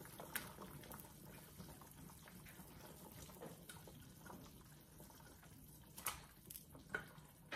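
Faint plops and small splashes of potato chunks dropped by hand into a pot of boiling broth, with a couple of sharper ones near the end.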